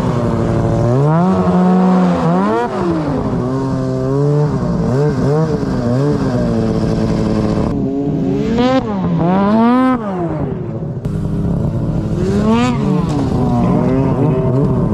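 Arctic Cat snowmobile engine revved up and down over and over, the pitch climbing and dropping with each blip of the throttle, with a few quick sharp revs near the middle.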